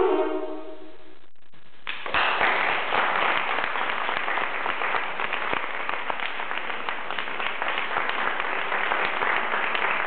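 The last held chord of a saxophone duet fades out, and about two seconds in an audience starts clapping, steady applause that carries on.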